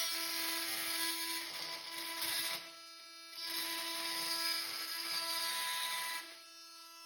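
Oscillating multi-tool with a carbide metal-cutting blade cutting through steel wood screws: a steady high motor whine under a harsh grinding rasp. The rasp eases for a moment about three seconds in and fades about six seconds in, and the tool winds down at the very end.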